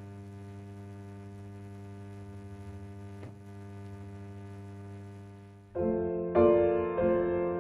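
Steady electrical mains hum, then about six seconds in, piano music begins with a few struck notes.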